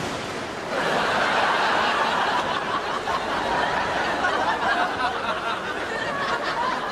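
Studio audience laughing, a sustained wave of laughter that swells in about a second in and carries on.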